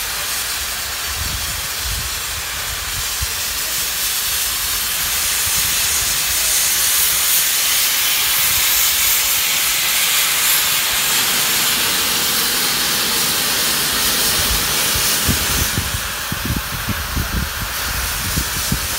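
Steam locomotive 56548 hissing steadily with escaping steam as it creeps forward; the hiss is loudest midway and eases near the end. Irregular low rumbles come a second or two in and again near the end.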